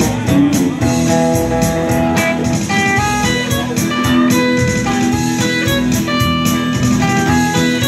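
Live band playing an instrumental passage in a bluesy style: a lead line of held notes on electric guitar over a strummed acoustic guitar, with a steady beat underneath.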